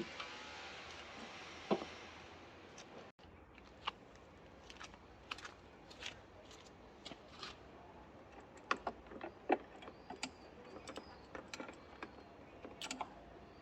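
Irregular light clicks, taps and small metallic knocks of hand tools and parts being handled, some with a brief high ring. Behind them for the first three seconds is a steady hiss that cuts off abruptly.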